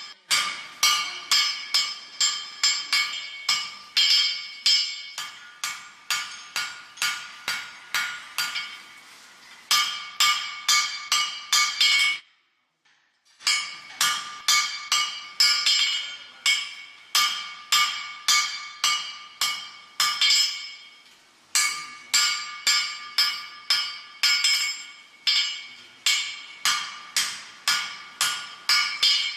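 Blacksmith's hand hammer striking iron on an anvil in steady runs of about two blows a second, each blow leaving a clear metallic ring. The hammering breaks off briefly about twelve seconds in, then resumes.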